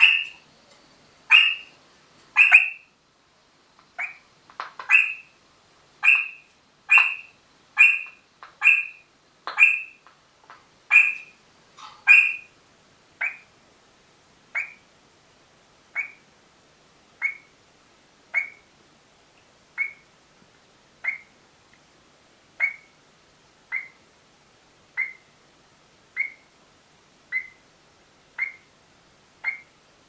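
Eastern rosella giving short, sharp, high calls in a steady series, about one a second. The calls are louder and more crowded for the first dozen seconds, then softer and evenly spaced.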